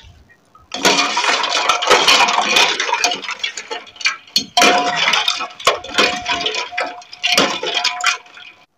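Steel ladle stirring ice cubes through milk in a steel bowl: ice and ladle clink and rattle against the bowl's sides in three spells with short pauses, and the bowl rings.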